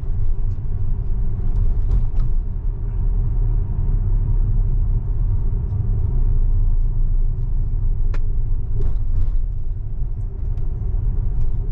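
Steady low rumble of tyre and road noise inside a moving Tesla's cabin; the electric car has no engine sound.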